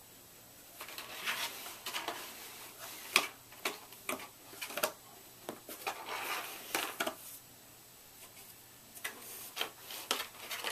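A cat pawing and nosing at the holes of a cardboard puzzle box: irregular scrapes on the cardboard with small clicks and rattles. It starts about a second in, pauses for a second or two, then starts again near the end.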